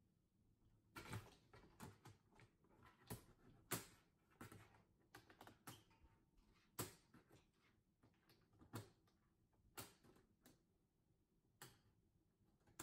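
A Norwegian Forest Cat's claws scratching a large cardboard box: faint, irregular rasping strokes, starting about a second in and coming roughly every half second to a second.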